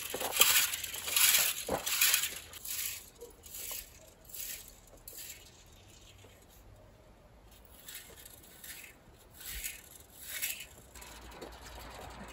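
Fan rake with springy metal tines scraping and combing through loose, dry garden soil in repeated strokes, levelling the bed. The strokes are loudest and closest together in the first few seconds, then come fainter and more spaced, with a few more near the end.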